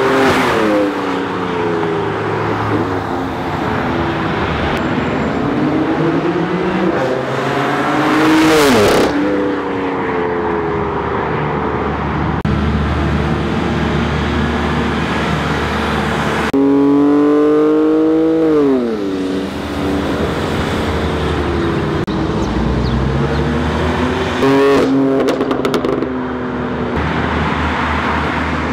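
BMW M4 Competition's twin-turbo straight-six running through an M Performance Exhaust as the car accelerates and drives past. The engine note climbs and drops in pitch several times as it revs and eases off, with a loud rush as the car goes by about nine seconds in. A few sharp cracks come near the end.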